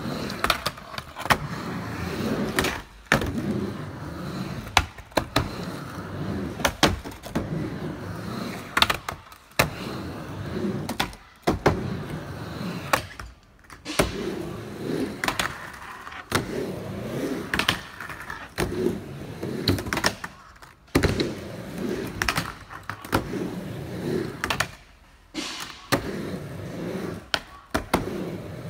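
Skateboard rolling back and forth on a mini ramp: the wheels rumble through the transitions, with sharp clacks as the board turns at the lip and comes back down.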